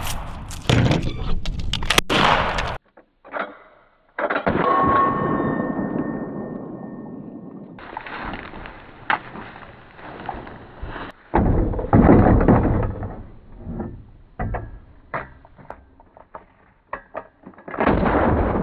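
Gunshots and metal clatter from a lever-action rifle and a side-by-side shotgun in a fast cowboy action transition, ending abruptly about three seconds in. Then the same action slowed down to slow-motion speed: deep, drawn-out booms with long ringing tails and slow clanks of the guns being handled.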